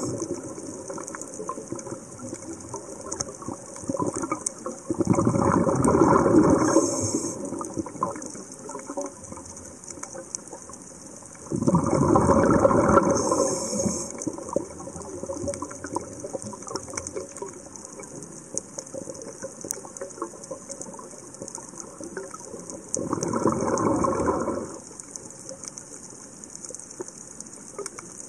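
Underwater recording of a scuba diver's exhaled breath bubbling out of the regulator in three bursts of two to three seconds each, about six to ten seconds apart. Between the bursts there is a faint steady crackle.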